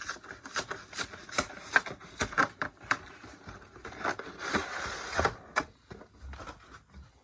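Hands unwrapping a Pokémon TCG collection box: a quick run of sharp plastic and cardboard clicks and crinkles, with a longer stretch of wrapper crinkling about four seconds in.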